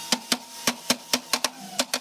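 Hammer tapping on a wooden panel: a quick, irregular run of sharp knocks, about four a second.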